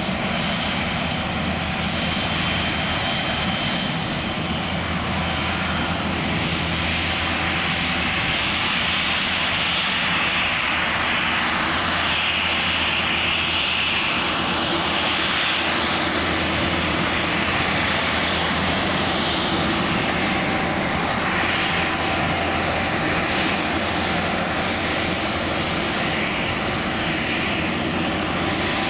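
A fixed-wing airplane's engine running steadily, its noise holding at one level, with a higher hiss that grows stronger toward the middle.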